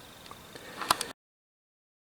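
Faint background hiss with a single sharp click just before the one-second mark, then the sound drops out to dead silence for the rest, an edit cut in the sound track.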